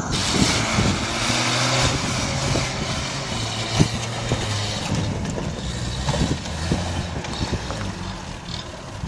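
Land Rover Series III engine running at low revs as the vehicle crawls over rough ground, its pitch rising and falling a little. A single sharp knock sounds about four seconds in.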